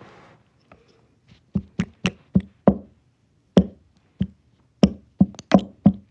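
A series of about a dozen sharp, irregular taps or knocks close to the microphone, starting about a second and a half in.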